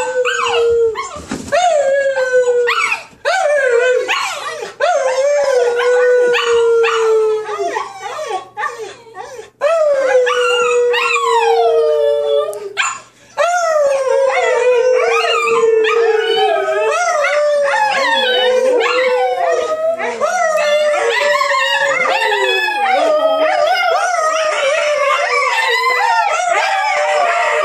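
Several Siberian huskies howling together: long wavering howls that slide down in pitch. At first one or two voices come with short breaks; from about halfway it becomes an unbroken, overlapping chorus of several dogs.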